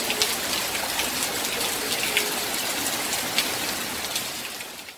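Heavy rain pouring down: a dense, steady hiss with many single drops splashing close by. It fades out near the end.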